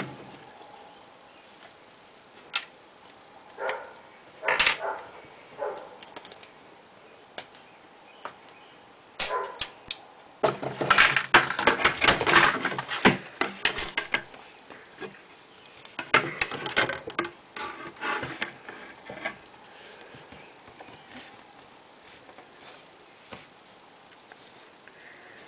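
Plastic Lego baseplates and bricks being handled: scattered clicks and knocks, with a dense run of clattering from about ten to fourteen seconds in.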